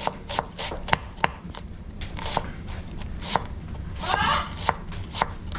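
A chef's knife dicing an onion on a wooden cutting board: sharp, irregular knocks of the blade on the board, quicker in the first second and more spaced after, with a short scraping swell about four seconds in.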